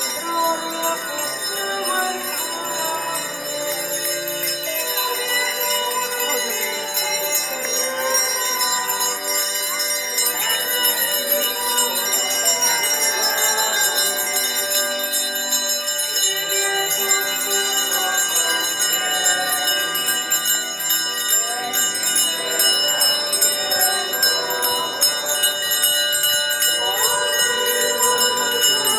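Handheld clusters of small bells rung without pause, a dense high jingling of the kind altar servers ring ahead of the canopy in a church procession, with music beneath.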